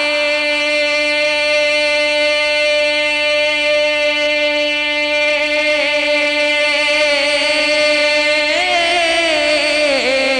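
A young man's solo voice singing Punjabi Sufi poetry, holding one long high note for about eight seconds with a slight waver, then lifting and falling away near the end.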